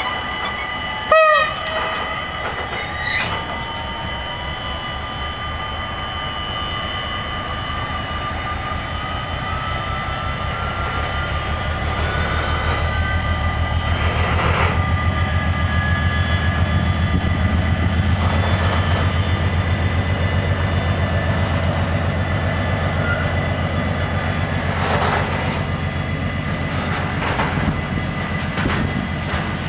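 Level-crossing warning bells ringing steadily while an NMBS class 77 diesel locomotive gives a short horn blast about a second in. The locomotive then approaches and passes, its engine growing louder with a slowly rising whine, followed by a container freight train rolling over the crossing with clattering wheels.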